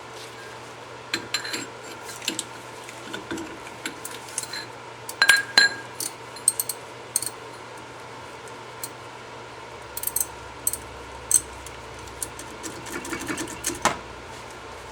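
Metal hand tools and brake parts clinking and clanking in short, irregular knocks during removal of a front disc brake caliper, loudest about five seconds in and again near the end, over a faint steady hum.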